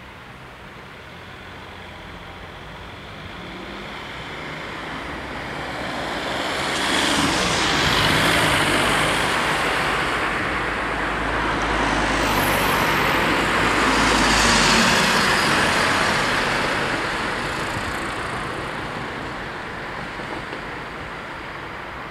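Cars driving past one after another, their tyre and engine noise swelling to two loud passes about eight and fifteen seconds in, then fading.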